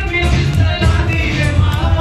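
Background music with a steady beat and a singing voice.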